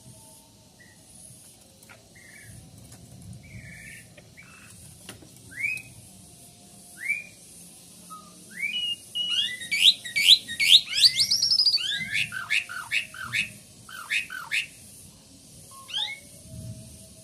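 Asian pied starling singing: a few separate rising whistles, then from about halfway a fast, loud run of rising and falling whistled notes with a quick trill, thinning out again near the end.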